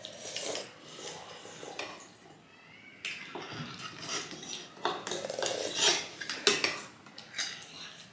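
Metal spoons and forks clinking and scraping against ceramic bowls, with slurping as noodle soup is eaten and the broth drunk from the bowl. The clinks come irregularly and are most frequent and loudest in the second half.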